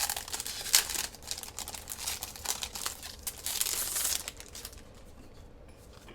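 Packaging crinkling and rustling as a desk pad is handled and unwrapped, with quick crackly strokes that die away about four and a half seconds in.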